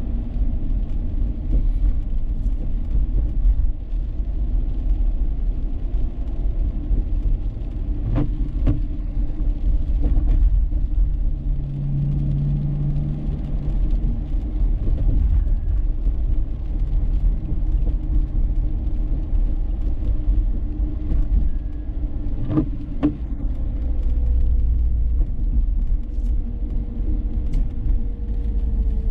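Dodge Charger 3.5's V6 engine and tyres giving a steady low road rumble while driving through city streets. A pair of sharp knocks comes about eight seconds in and again about twenty-two seconds in.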